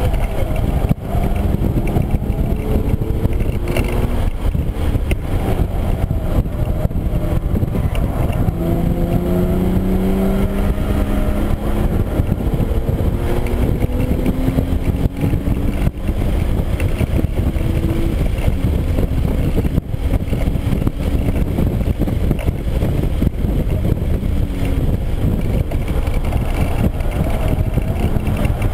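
2013 Hyundai Genesis Coupe 3.8 R-Spec's V6 engine heard from inside the cabin at track speed over heavy road and wind rumble. The engine note climbs in pitch twice through the middle under acceleration, then settles as the car slows.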